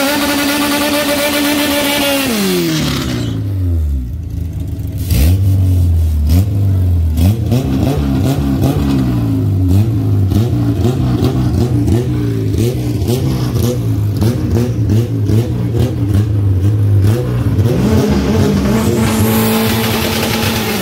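Drag cars' engines revving at the start line. One is held at high revs and then drops away about two seconds in. From about five seconds comes lower, uneven revving with a rapid crackle. Near the end another engine climbs and is held high for a burnout.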